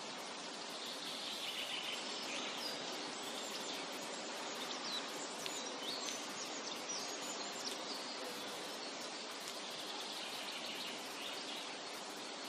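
Forest ambience: a steady rushing background with small birds chirping and twittering, most busily from about a second in through the middle, and again near the end.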